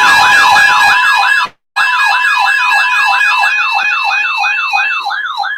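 Electronic siren in a fast yelp, its pitch sweeping up and down about four times a second over steady held tones. It cuts out for a moment about one and a half seconds in, then resumes and stops at the very end.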